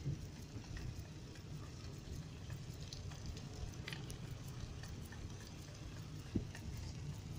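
Steady low rumble of a car rolling slowly, heard from inside the car, with scattered faint ticks and crackles and one short knock about six seconds in.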